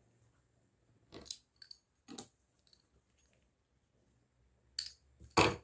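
Fluted pastry wheel cutting a sheet of chebakia dough on a marble worktop: a few short strokes, the loudest near the end.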